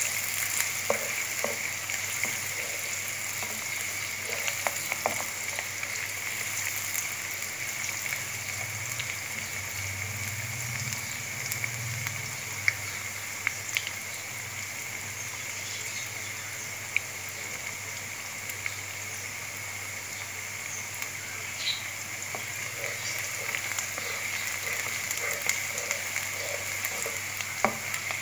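Sliced onions sizzling steadily in hot oil in a pan, with scattered pops and crackles, as they fry to a light brown. Now and then they are stirred with a spatula.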